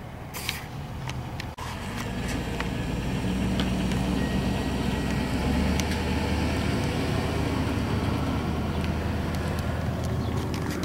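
A motor vehicle's engine running: a low steady hum that builds over the first few seconds and then holds, with a few faint clicks.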